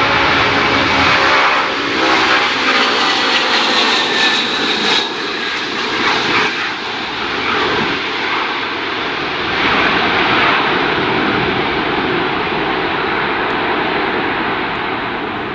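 Antonov An-124's four D-18T turbofan engines at takeoff thrust as the freighter lifts off and climbs away, a loud steady jet roar that gradually fades over the last few seconds.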